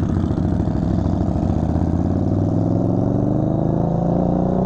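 Harley-Davidson Low Rider S V-twin engine pulling away from a stop, its pitch climbing steadily as it accelerates through the gear.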